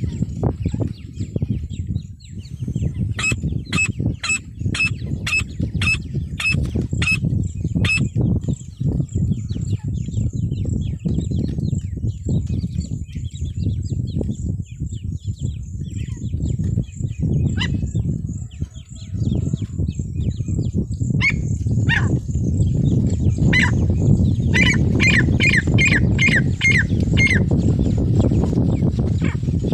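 Female francolin (teetar) calling: a quick run of about nine sharp, high notes, roughly two a second, then a few scattered notes and another run of about seven near the end. A loud low rumble lies underneath throughout.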